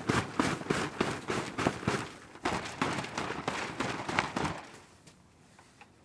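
Crinkling, crackling rustle of nylon camping gear being handled, a quick irregular run of sharp crackles that stops about four and a half seconds in.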